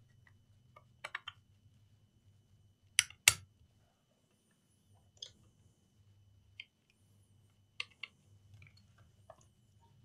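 Sharp clicks and snaps of a laptop SO-DIMM RAM module being pushed into its slot on the motherboard: a loud pair of snaps about three seconds in, with lighter clicks of handling before and after.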